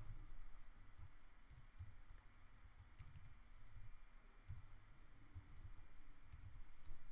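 Faint, irregular key clicks of a computer keyboard being typed on.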